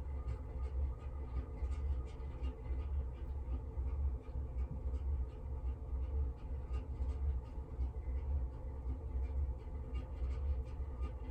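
Train going past, a steady low rumble, with light scratchy brush strokes and small taps close by.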